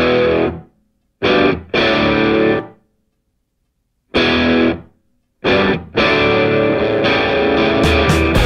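Intro music: distorted electric guitar chords played in short stabs with silent gaps between them, then continuous playing from about six seconds in.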